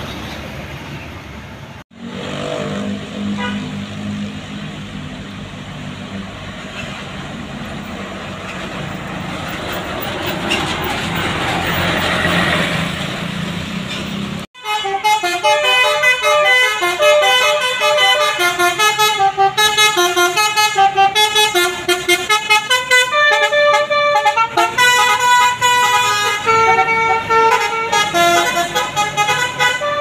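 A bus's engine and tyres passing, growing louder until a cut about fourteen and a half seconds in. Then a Basuri telolet horn, the multi-tone bus horn, plays a quick tune of stepped notes in short toots.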